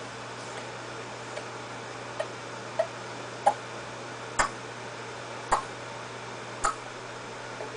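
A baby giving short, clipped grunts at irregular gaps of about a second, strongest around the middle, as she strains on her tummy, which her mother puts down to working out gas. A steady low hum runs underneath.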